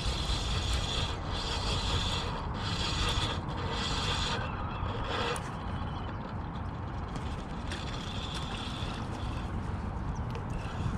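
Spinning reel being cranked to reel in a hooked fish, its gears whirring in several short stretches with brief pauses between, over a steady low rumble.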